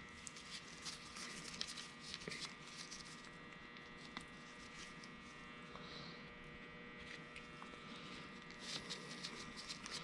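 Quiet room tone: a faint steady electrical hum with scattered soft clicks and taps.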